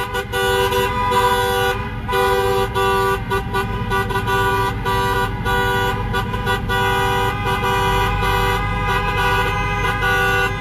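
Many car horns honking at once in slow, jammed traffic, several held for seconds and overlapping, over the low rumble of running car engines.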